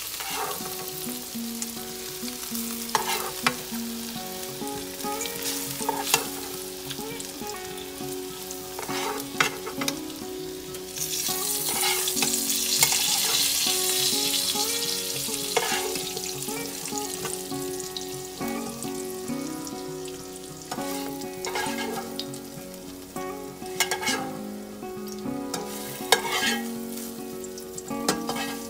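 Paneer pieces sizzling in hot oil in a nonstick frying pan while a spatula scrapes and knocks against the pan, lifting them out. The sizzle swells to a louder hiss for a few seconds in the middle.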